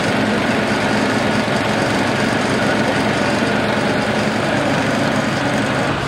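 An engine idling steadily, a low hum under an even rumble.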